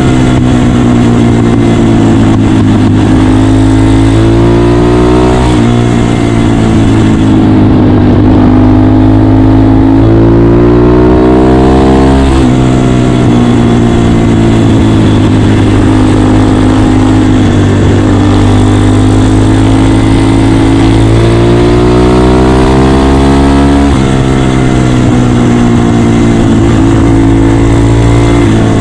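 Honda Dax motorcycle with a 150cc single-cylinder engine being ridden at road speed. Its engine note climbs slowly, then drops back sharply several times as the rider shifts or eases off, with steady rushing noise underneath.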